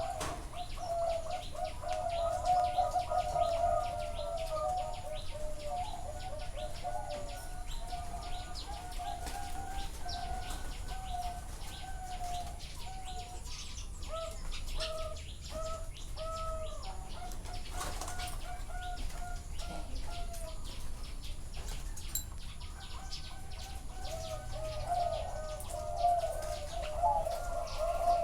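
A chorus of zebra doves cooing: many overlapping rippling, trilled coos. The chorus thins out through the middle and swells again near the end.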